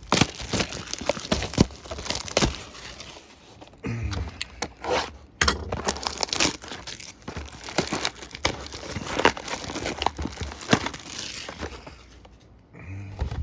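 Packaging of a card repack box being handled and torn open by hand: irregular crinkling and tearing crackles, with short pauses.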